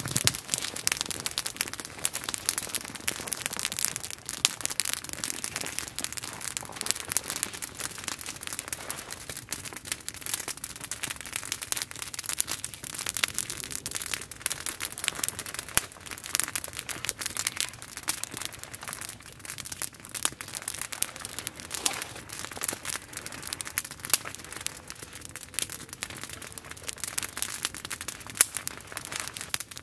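Small wood campfire crackling and popping steadily, a dense run of sharp snaps.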